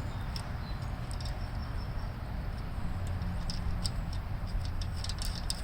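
Light metallic ticks and clicks of a lock washer and nut being handled and threaded onto a starter switch terminal stud, coming more often in the second half, over a steady low background rumble.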